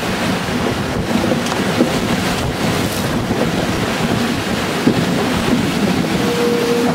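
Wind buffeting the microphone over the rush of sea water along the hulls of a sailing trimaran under way, steady throughout. A steady humming tone comes in near the end.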